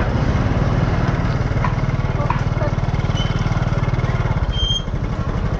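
Small motorbike engine running steadily at low speed. Two short high chirps come in the second half.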